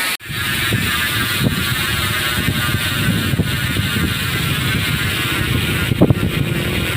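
GUB bicycle hub's freewheel buzzing with rapid pawl clicks as the wheel coasts, cutting out briefly just after the start and then running on more faintly over a rough low rumble.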